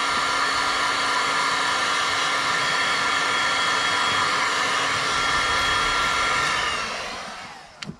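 Electric heat gun blowing steadily, shrinking heat-shrink tubing over a crimped wire joint, with a steady motor hum and whine under the rush of air. Near the end it winds down and fades out.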